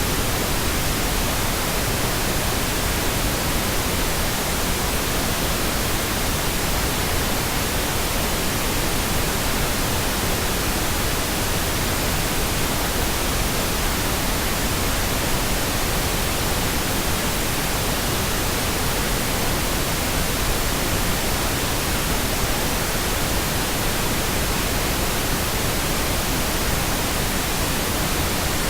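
Generated pink noise: a steady, even hiss spread across all pitches, with no change in level.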